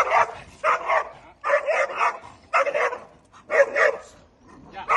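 Dog barking repeatedly in short, sharp clusters about a second apart: the leash-reactive barking of a dog that has spotted another dog.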